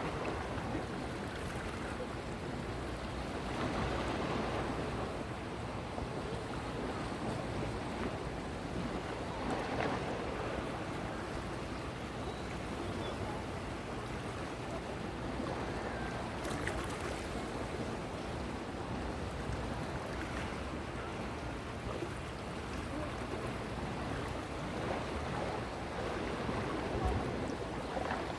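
Sea waves washing, with wind noise, a steady rushing that swells a few times.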